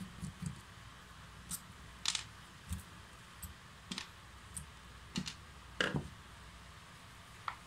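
Irregular small clicks and taps of hands handling the opened gearbox end of a cordless drill, its metal plate, screws and shaft, with a screwdriver nearby. About a dozen sharp ticks are spread over several seconds, the loudest a quick double knock about six seconds in.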